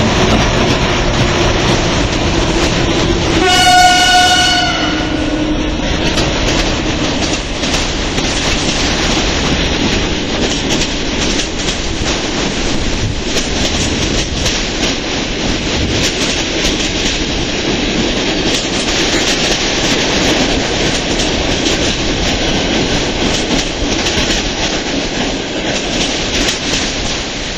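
EP07 electric locomotive hauling a passenger train past at close range, its steady hum dropping in pitch as it goes by, with a short horn blast about four seconds in. Then the coaches roll past, wheels clicking over the rail joints.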